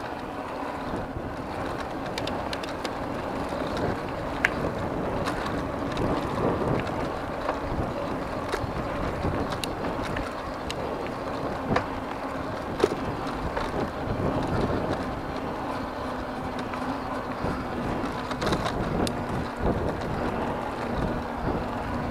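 Electric bike rolling along a gravel fire road: a steady rush of tyre and wind noise, with scattered sharp ticks and clicks from loose stones and the bike rattling. A faint steady hum joins in the second half.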